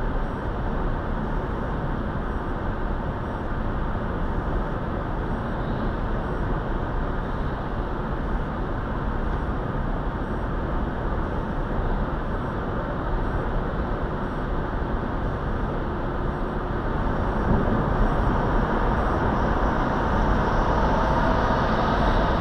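Steady road and wind noise inside a car cruising at highway speed, tyres on asphalt and engine drone blended together, growing a little louder in the last few seconds.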